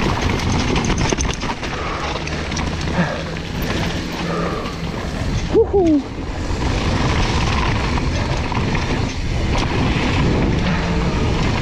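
Mountain bike descending a dirt trail: steady rushing tyre noise with the bike rattling and knocking over roots and stones. A short falling tone sounds about halfway through.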